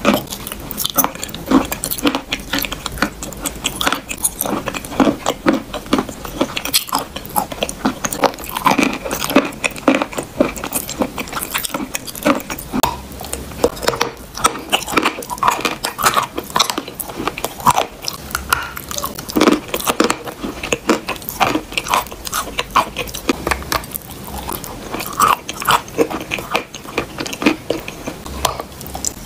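Close-miked eating of wet chalk paste: continuous biting, chewing and crunching, with many quick clicks packed close together.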